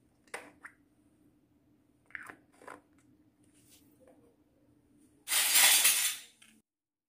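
Light plastic clicks and taps as a small plastic toy pot and its lid are handled, four sharp ones in the first three seconds. About five seconds in, a loud scraping rush lasts about a second. A faint low hum runs underneath until the sound cuts off suddenly.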